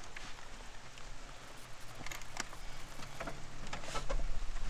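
Scattered small plastic clicks and rubbing as a hose fitting is pushed and worked onto a vehicle's EVAP purge valve, over a faint low hum.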